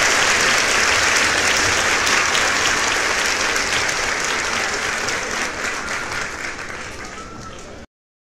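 Applause from a crowd of many hands, fading gradually and then cutting off abruptly near the end.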